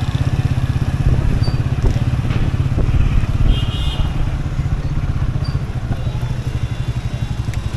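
Motorcycle engine running steadily as the bike rides along, heard from on board as a fast, even train of low pulses. A short high-pitched tone sounds about three and a half seconds in.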